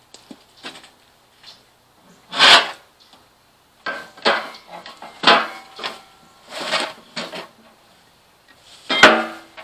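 A series of separate knocks and clanks of hard objects, some with a short ringing tone. The loudest come about two and a half seconds in and near the end.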